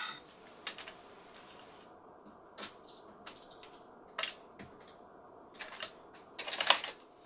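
Plastic toy coins and play-money bills being put into a toy cash register's drawer: scattered light clicks and taps, then a short burst of clatter near the end.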